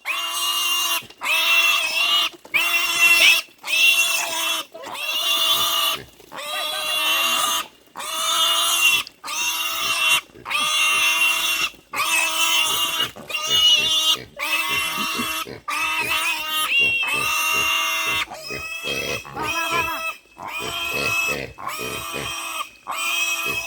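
Piglets squealing over and over: loud, high, pitched squeals about a second long each with short breaks between. In the last third the squeals come shorter and choppier.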